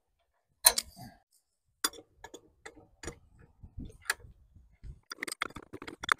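Hand tools clinking on the metal parts of a tractor during disassembly: a few sharp, separate clinks, then a quick run of small clicks about five seconds in.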